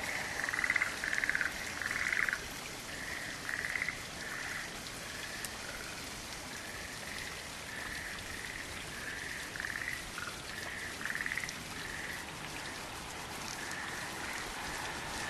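A chorus of small creatures calling: short, buzzy pulsed trills repeated many times, louder in the first couple of seconds and then fainter, over a soft hiss of drizzle.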